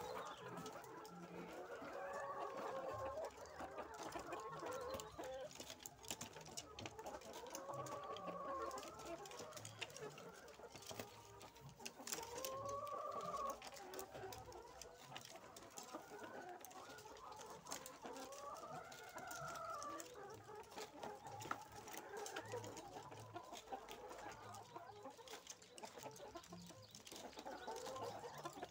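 Caged laying hens clucking, with several drawn-out rising-and-falling calls standing out from the flock's steady clucking.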